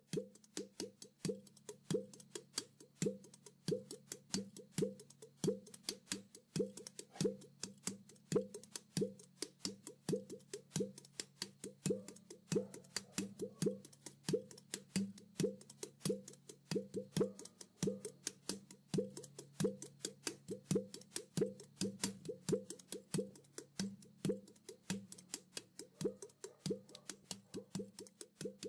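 Handmade mini udu (clay pot drum) played by hand in a steady, quick rhythm of about three strikes a second: low pitched tones from the pot's body mixed with sharp finger taps on the clay.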